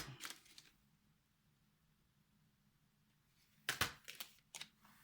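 Quiet room with a faint low hum, broken about four seconds in by a short cluster of sharp clicks and rustles as pencils and their packaging are handled.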